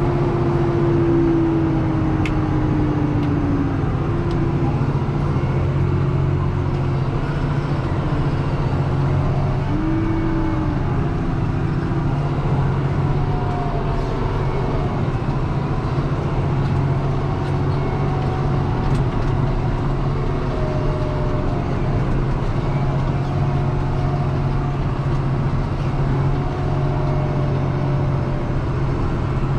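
Deutz-Fahr 6185 TTV tractor's six-cylinder diesel running steadily under load, heard from inside the cab, with faint whines that rise and fall in pitch.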